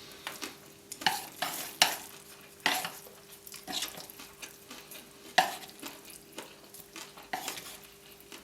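Close-miked eating sounds: wet chewing, smacking and slurping of stir-fried noodles, coming as a string of short, sharp, irregular bursts.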